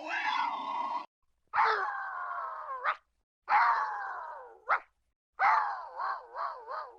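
Four drawn-out animal cries, one after another, each sliding down in pitch and ending in a quick upward flick; the last one wavers up and down several times.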